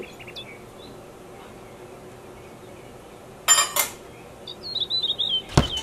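A stainless steel measuring cup set down on stacked metal bowls with one ringing clink, about three and a half seconds in. A bird chirps briefly after it, and a short knock comes near the end.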